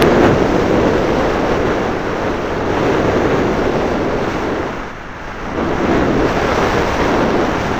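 Wind rushing over the microphone of a tiny keychain spy camera on a bicycle moving at speed: a loud, steady rush that dips briefly about five seconds in, then swells again.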